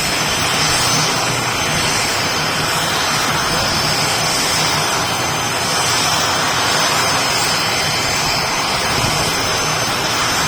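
ATR twin-turboprop airliner's engines running, a loud steady drone with a high steady whine over it.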